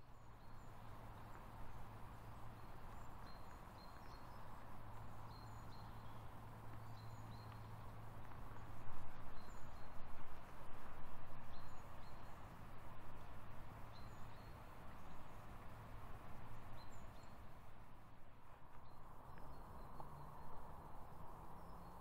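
Small birds giving short high chirps every second or so over a steady low hum. A run of sharp clicks and rustling comes about eight to twelve seconds in.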